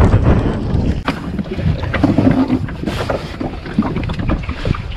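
Wind buffeting the microphone, heaviest in the first second, over irregular knocks and rustles from handling a landed pike in a boat.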